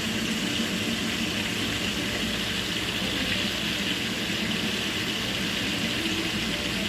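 Food cooking in a pot on the stove, giving a steady, even hiss.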